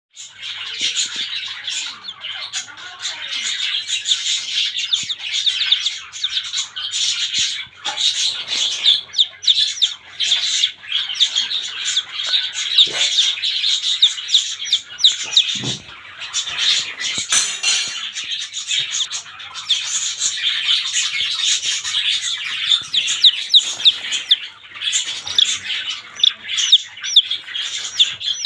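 Domestic chicken chicks peeping rapidly and without pause: a dense stream of short, high-pitched, falling peeps.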